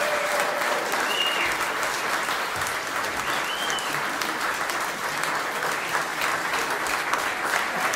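Audience applauding steadily at the end of a song, a dense even clapping with two brief high-pitched sounds rising over it about a second in and a few seconds in.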